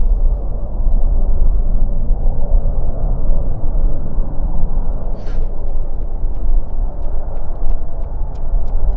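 Deep, continuous rumble of jet airliner engines, rising and falling unevenly in loudness, with a short hiss about five seconds in and faint ticks near the end.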